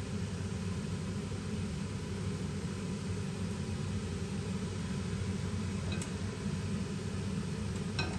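Steady low kitchen hum while a wok of meat and vegetable sauce cooks on the stove, with a faint click about six seconds in and another near the end.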